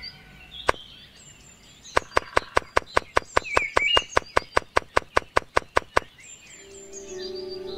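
Miniature bricks clicking into place around a plastic pond form: one click, then a quick, even run of small clicks, about five a second, for some four seconds.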